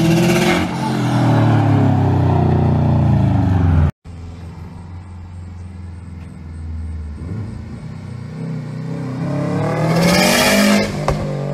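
Turbocharged Subaru WRX flat-four accelerating hard in a pull, loud and close, cut off suddenly about four seconds in. Then a second pull, heard farther off, rises in pitch and grows louder toward the end.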